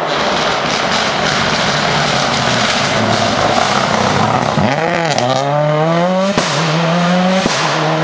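Ford Escort rally car's turbocharged four-cylinder engine at full load as it approaches, then passing close by: the engine note dips and climbs steeply through the revs, with two quick upshifts about a second apart, each marked by a sharp crack.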